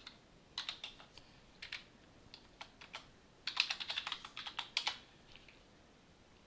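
Typing on a computer keyboard to enter a username and password: scattered groups of key clicks, then a quick run of keystrokes about three and a half seconds in that stops about five seconds in.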